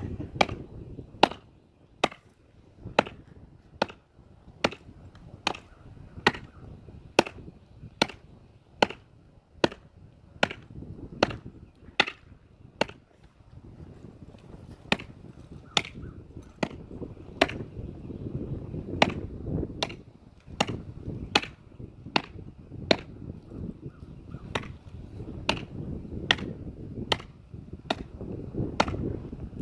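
Renegade large fixed-blade knife chopping into a standing sapling trunk: a steady run of sharp blade strikes on wood, a little faster than one a second, with a short pause about halfway through.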